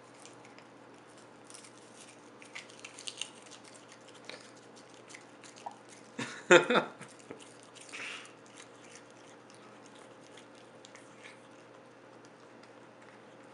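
A cat biting and chewing on seaweed held in its paws: scattered small clicks of chewing, with a much louder bite a little past the middle.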